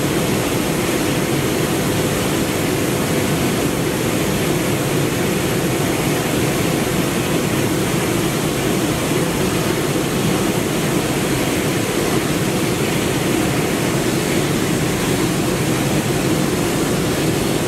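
JAS-39C Gripen's Volvo RM12 turbofan running steadily after spin-up: an even jet roar with a steady mid tone and a thin, high whine above it.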